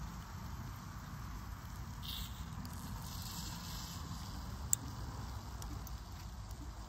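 Clams in their shells sizzling on a charcoal grill, with faint crackling ticks and one sharp pop about five seconds in, over a steady low rumble.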